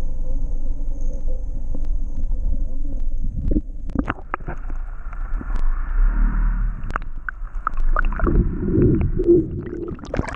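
Handling noise from a camera being moved about or covered: knocks and rubbing over a steady low rumble, with the knocks starting a few seconds in.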